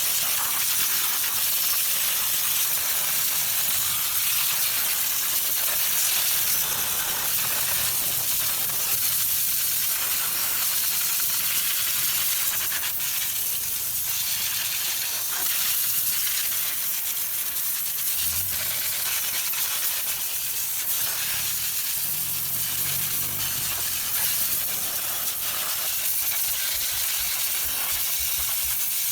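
Steady, high hiss of a pressure spray jet working over an engine bay.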